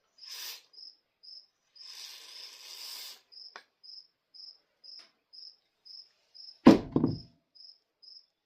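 A cricket chirping steadily at one high pitch, about two chirps a second. Rustling handling noise comes twice in the first half, and a loud thump comes about two-thirds of the way through.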